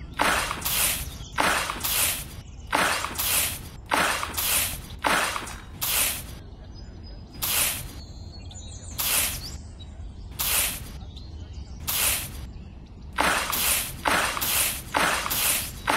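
A miniature hand shovel scooping loose sand and tipping it into a plastic toy trailer, each scoop a short dry hissing scrape. The scrapes come about twice a second, slow to one every second or so in the middle, then quicken again near the end.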